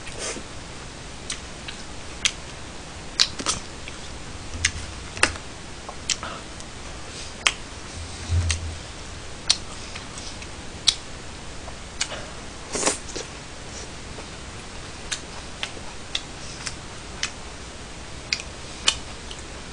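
Sounds of eating: wooden chopsticks clicking and tapping against plastic takeout trays in irregular sharp taps, with a few longer chewing and slurping sounds from noodles and cutlet.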